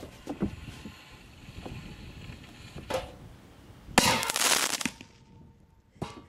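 Fireworks going off inside a metal trash can: a few small pops, and a short burst about three seconds in. About four seconds in comes a sharp bang that blasts the lid off, followed by nearly a second of hissing crackle, then another short pop near the end.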